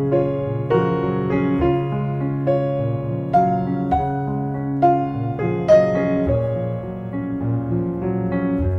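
Piano music: melody notes struck about every half second over held low chords.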